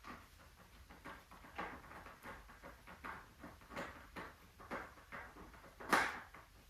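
Irregular light knocks and rustles of things being handled, about one or two a second, with one louder knock about six seconds in.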